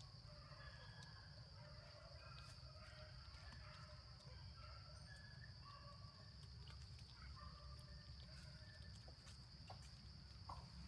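Near silence with a faint, steady high-pitched insect drone over a low rumble, and a few soft clicks near the end.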